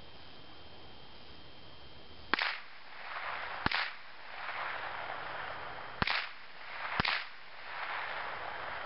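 Four shots from a Remington Nylon 66 .22 rifle fired from some 50 to 75 yards away: four sharp cracks, spaced about one to two seconds apart. Each is trailed by about a second of rolling echo.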